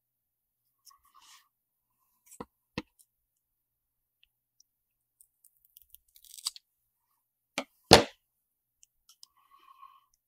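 Scissors snipping a thermal pad, then scattered small clicks and knocks as the scissors and the SSD parts are handled on a work mat. The loudest is one sharp knock about eight seconds in.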